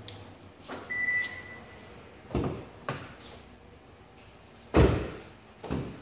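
A piezo buzzer gives one short, steady high beep as the aftermarket alarm's welcome sound when the smart key comes near. This is followed by a series of door thunks and clicks as the doors auto-unlock, the loudest a little before the end.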